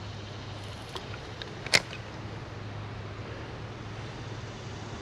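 Spinning reel working during a cast: a few faint ticks, then one sharp click about two seconds in as the bail snaps shut. A steady low background noise runs underneath.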